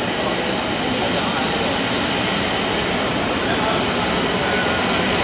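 Train noise: a loud, steady rumble with a high-pitched squeal or whine held throughout.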